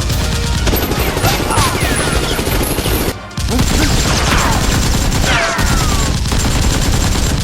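Rapid automatic gunfire sound effects over music, broken by a brief gap about three seconds in.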